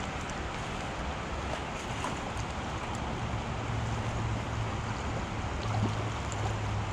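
Steady rush of flowing creek water, with wind rumbling on the microphone.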